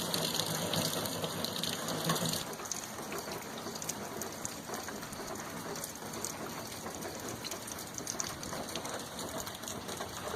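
Rain falling in a thunderstorm: a steady hiss with scattered small ticks of drops, its higher part thinning out about two seconds in.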